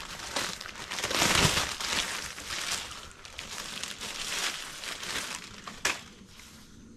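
Plastic packaging bag crinkling and rustling as it is opened and handled, loudest about a second in, with a sharp click near the end.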